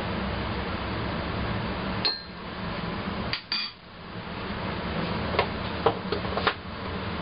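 Crockery and spoon clinking over a steady background hum. There is a ringing clink about two seconds in, two more in quick succession a second later, then several lighter clicks near the end.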